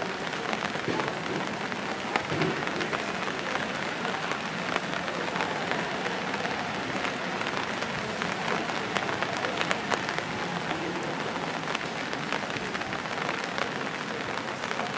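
Steady rain falling: an even hiss dotted with many small ticks of drops.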